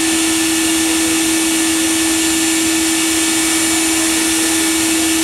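Electric blower motor running steadily: a constant hum with a rush of air over it.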